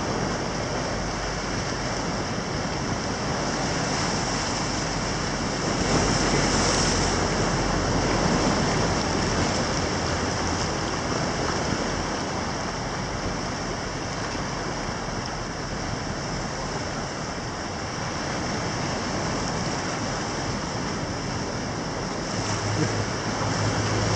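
Ocean surf washing up a beach, a steady rush that swells as a bigger wave breaks about six seconds in. A low steady hum comes in near the end.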